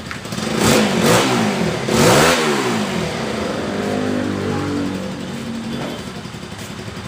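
Motorcycle engine, running on oil dosed with EGB Safety Engine Lube additive, revved up three times in quick succession in the first couple of seconds, then dropping back to a steady idle.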